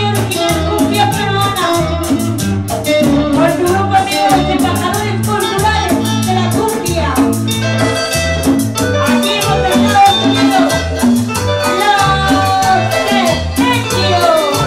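Live Peruvian cumbia band playing: a bouncing bass line and steady percussion with shakers under a melodic lead line.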